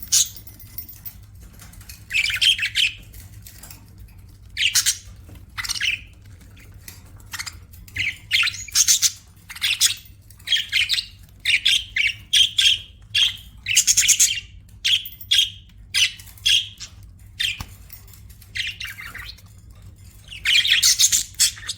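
Pet budgerigars chirping and squawking in short, scratchy, irregular bursts, over a low steady hum.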